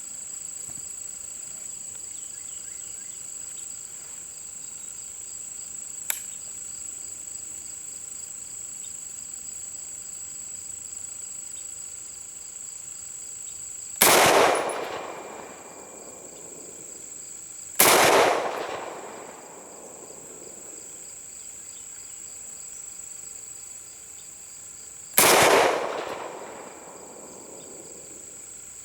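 Three rifle shots from an International Harvester M1 Garand firing .30-06, each a sharp crack with an echoing tail of about a second and a half. The first comes about halfway through, the second some four seconds later and the third about seven seconds after that. A light click comes about six seconds in, and crickets chirr steadily throughout.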